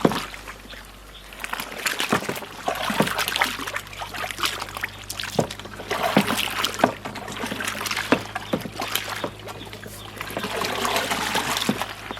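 Water sloshing and splashing in a 200-litre barrel as a fermenting fertilizer mix of cow manure and molasses in water is stirred, with irregular knocks along the way.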